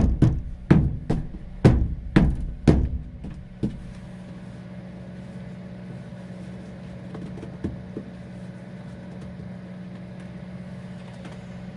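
About seven quick, sharp strokes of snow being swept and knocked off a truck, roughly two a second, stopping about three and a half seconds in; after that only a steady low hum.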